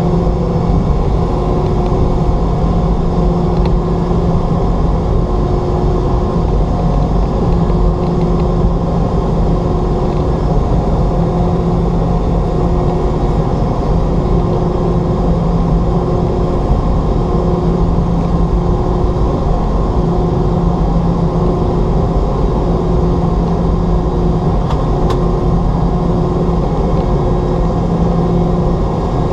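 In-flight cabin noise of a Boeing 717: the steady roar of its rear-mounted Rolls-Royce BR715 turbofans and rushing air, with several steady hums and one hum that wavers about every two seconds.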